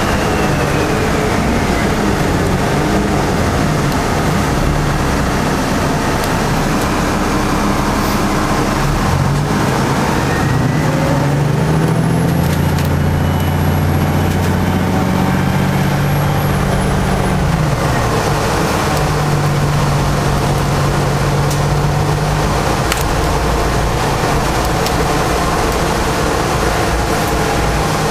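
Diesel engine and road noise inside the lower deck of an Alexander Dennis Enviro 500 double-decker bus at highway speed, a steady drone. The engine's hum climbs in pitch about a third of the way in and drops back a little past halfway.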